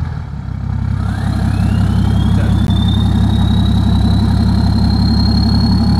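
BMW 535d E60's twin-turbo three-litre straight-six diesel idling, with a turbo whistle that rises about a second in and settles into a steady high whine. The whistle is plainly audible at idle because of the car's straight-through full-tube exhaust.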